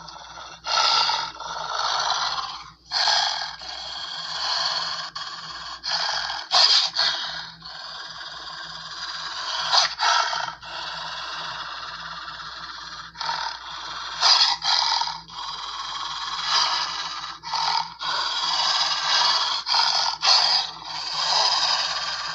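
Harsh, raspy death growls in a string of bursts, each about one to three seconds long, separated by short breaks.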